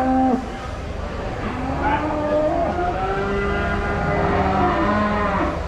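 Aberdeen Angus cows mooing. One call ends just after the start, then a long, drawn-out moo runs from about a second and a half in until near the end, over a steady low hum.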